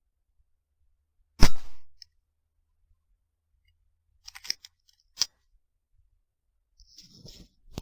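A single rifle shot about a second and a half in, the loudest sound, dying away quickly. It is followed by a few sharp mechanical clicks, typical of the rifle's action being worked to reload, and a brief rustle near the end.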